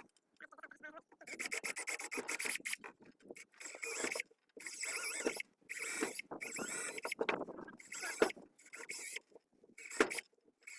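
A drill with a small bit boring into green wood, to overlap a row of holes, in a series of grinding, scraping stretches of a second or two each with short pauses between.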